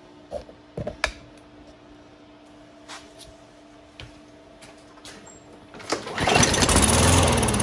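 A few light clicks and knocks, then about six seconds in the Craftsman M100 push mower's 140 cc engine is pull-started and fires, running loudly on a shot of ether sprayed into the carburetor. Running on starting fluid shows the no-start fault lies in fuel delivery or bad fuel.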